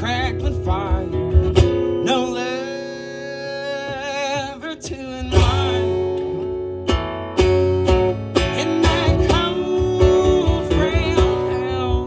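Country band playing a waltz: strummed acoustic guitar and a steady bass under a melody line held with vibrato.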